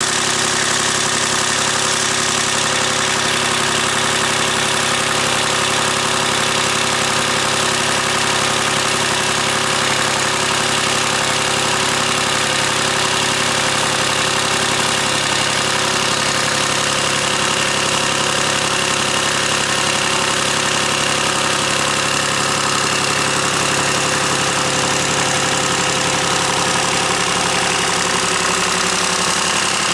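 Kubota V1105 turbo diesel engine running steadily at a constant speed on a test stand.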